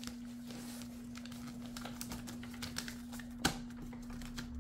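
A sheet of paper rustling and ticking as hands fold it and press its creases flat against a wooden tabletop, with one sharper tap about three and a half seconds in. A steady low hum runs underneath.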